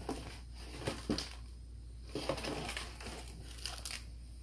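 Crinkling and rustling of packing material in several short spells as hands dig through a shipping box for the next item.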